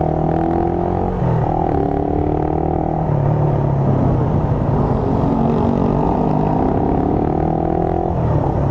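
Motorcycle engine running under way, picked up by a microphone inside the rider's helmet, its note stepping down a little about a second in and changing again about three seconds in, over steady road and wind rumble.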